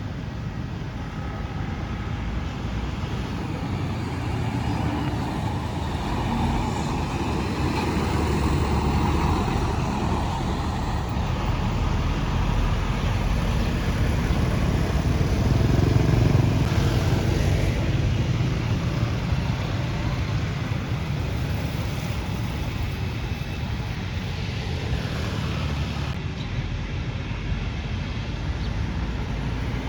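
Road traffic noise with a heavy motor vehicle passing: the engine and tyre noise builds, is loudest about halfway through, then fades.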